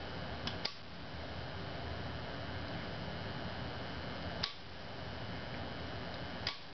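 Rotary selector switch on a home-made transformer voltage regulator clicking as it is stepped up to higher output voltages: four sharp clicks, two close together near the start, one past the middle and one near the end. Under them the transformers hum steadily.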